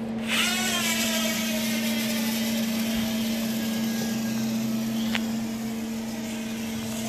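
Small toy quadcopter drone buzzing in flight: a high motor-and-propeller whine starts suddenly just after the start, falls in pitch over the first second or two, then holds steady and grows a little fainter near the end.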